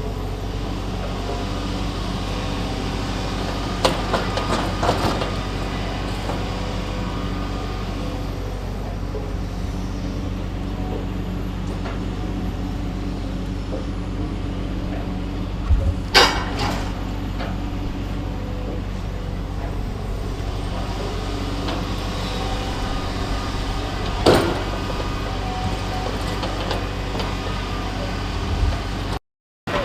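Heavy machine's engine running steadily, with a few sharp knocks and clanks, the loudest about halfway through.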